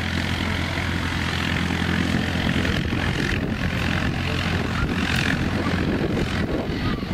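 Jet engines of a twin-engine airliner running on the runway, a steady loud rush of noise over a constant low hum.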